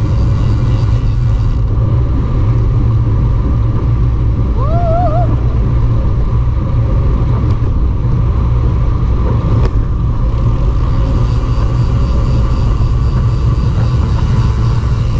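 Wind rushing over the microphone of a camera riding on a moving road bicycle: a loud, steady low rumble. One short chirp about four and a half seconds in.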